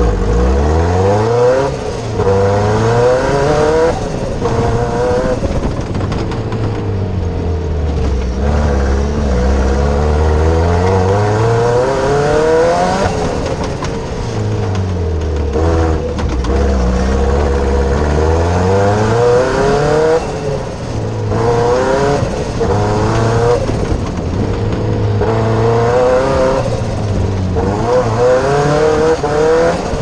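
Cosworth engine of a Fiesta off-road prototype driven hard, heard from inside the cockpit: revs climb in repeated rising sweeps, break off and drop back, with a couple of longer low-rev stretches before it pulls up again.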